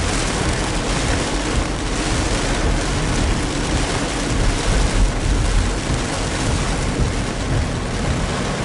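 A car driving in rain: a steady hiss of rain and tyres on the wet road over a low rumble of road and engine noise.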